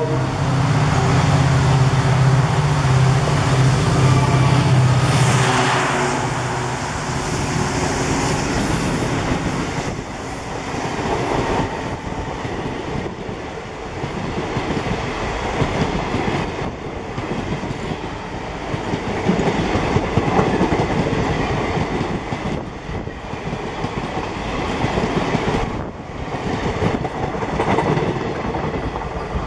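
Indian Railways diesel locomotive passing close with a deep engine drone that fades about five seconds in. Then passenger coaches of two trains roll past on adjacent tracks, their wheels clattering rhythmically over the rail joints.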